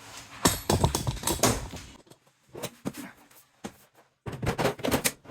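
Irregular knocks and clatter of cabinet parts and hardware being handled, in bursts: a cluster in the first second and a half, a few single knocks, and another cluster near the end.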